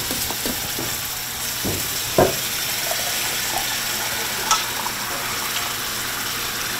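Flour-and-meat-juice gravy sizzling in a cast-iron skillet as a spoon stirs it, with a few short knocks about two seconds in and again past the middle.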